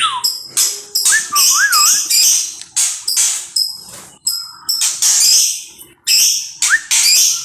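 Caged songbird singing loudly: a run of harsh, scratchy notes, about two or three a second, with a few short wavy whistles mixed in.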